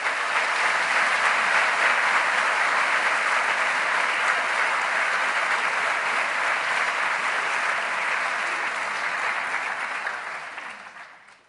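Audience applauding steadily, fading away over the last couple of seconds.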